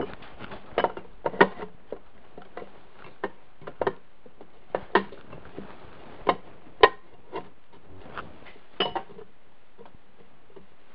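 Metal transmission case being shifted and worked down over the gears by hand: irregular clinks and knocks of metal against metal, some sharp and loud, at uneven intervals over a steady faint hiss.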